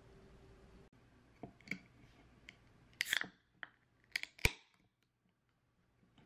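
Aluminium Kloud beer can being handled and opened by its ring-pull: several small clicks, a louder, longer crack about three seconds in, and a sharp click about a second and a half later.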